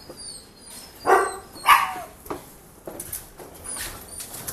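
Malinois dogs in kennel cages barking: two short barks a little over a second in, a softer one after, and faint high whines.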